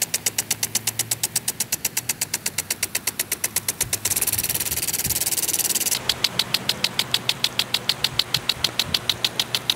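Lawn irrigation sprinkler head ticking rapidly and evenly, about seven or eight ticks a second, as it sweeps its spray. For about two seconds in the middle the ticking gives way to a steady hiss of water spray.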